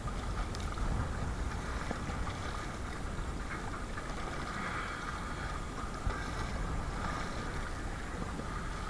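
Water rushing and splashing against a Perception Sound 10.5 kayak in choppy, whitecapped water, with strong wind rumbling on the microphone.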